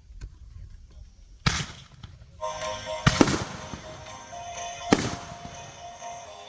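Fireworks going off with sharp loud bangs, one about a second and a half in, a quick pair about three seconds in, and another near five seconds. Music with held tones comes in partway through.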